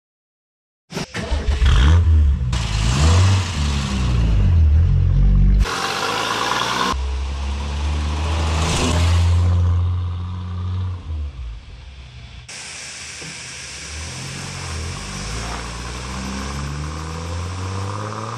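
A car engine starting up about a second in and being revved, then the car driving off, heard in several short cut-together shots; the engine is fainter in the last few seconds.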